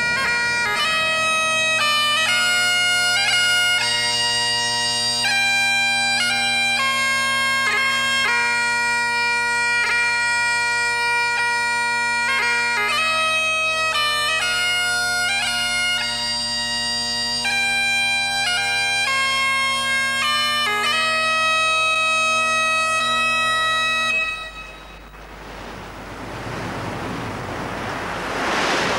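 Bagpipes playing a tune over steady drones. The piping stops near the end and gives way to a swelling rush of noise.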